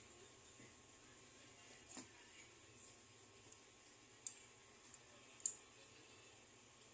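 Small metal pieces clinking as gold jewellery is handled during repair: about half a dozen faint, sharp clicks, the loudest near the end.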